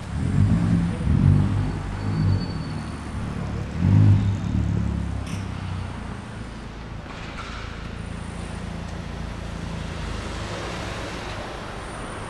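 An engine running close by, surging louder twice in the first five seconds, then settling to a steadier, quieter hum.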